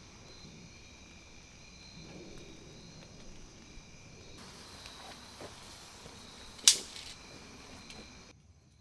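Insects chirring steadily, with a few faint ticks and one loud, sharp click about two thirds of the way in. The chirring drops away abruptly just before the end.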